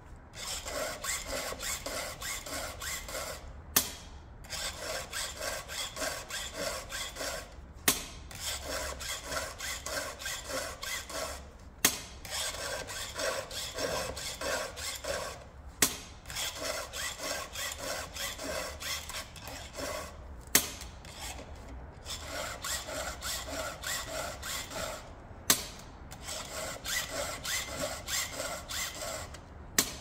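Chainsaw chain being sharpened with a hand file: rasping file strokes, about three a second, in runs of about ten strokes, with a single sharp click between runs every four seconds or so.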